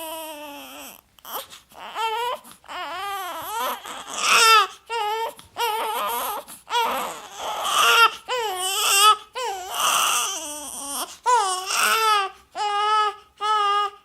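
Infant crying in repeated wailing bursts, each cry rising and falling in pitch and separated by short gasping breaths.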